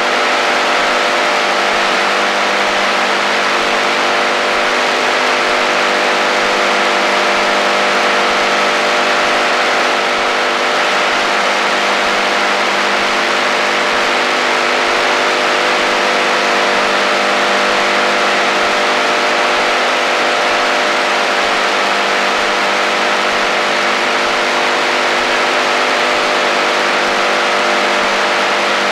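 AM radio receiver on the shortwave (HF) band giving out steady static hiss over a constant low buzzing drone of several held tones: real radio interference.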